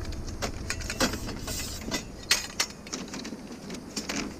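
Scattered knocks and clinks of small metal pieces being handled and sorted for scrap.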